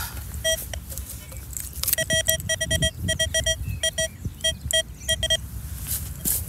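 Metal detector beeping on a buried metal target: one short beep, then after a pause a run of short, same-pitched beeps in an uneven rhythm of about three to four a second.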